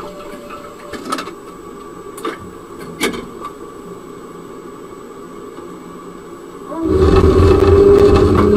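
Inside a stopped tram's driver cab: a low steady hum with a few sharp clicks. About seven seconds in, the sound jumps to the much louder running noise of a tram under way, a low rumble with a steady whine over it.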